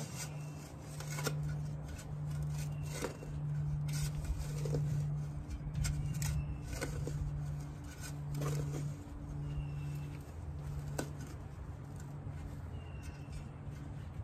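Shovel blade digging into soil, with irregular scrapes and chops as it is driven in and levered out, deepening a planting hole. Under it runs a steady low machine hum that swells and dips about once a second.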